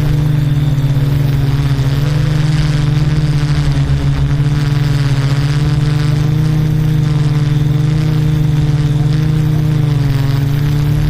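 Multirotor drone's propellers humming steadily in flight, the pitch wavering slightly and dipping a little about ten seconds in.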